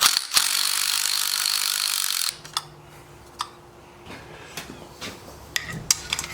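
A loud steady hiss for about two seconds that stops abruptly, then scattered light clicks and clinks of hand tools as a deep socket is fitted onto a nut on a turbocharger.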